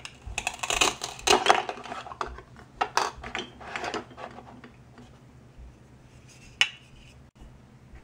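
Plastic toy knife cutting through a velcro-joined toy pomegranate, the velcro tearing apart in a crackling, scratchy run of clicks over the first few seconds, followed by light handling of the plastic pieces and one sharp click near the end.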